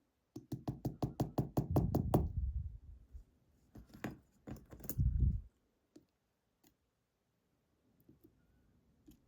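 Rapid series of sharp knocks, about six a second for two seconds, then two single knocks a couple of seconds later: a pin-tumbler lock being knocked against a hard surface to shake its driver pins and springs out.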